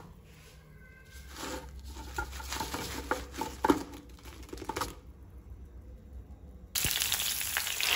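Fried arbi (colocasia) slices being tipped from a wire strainer onto paper towel: paper crinkling with light clicks and clatters of the crisp pieces for a few seconds. Near the end a steady hiss cuts in abruptly.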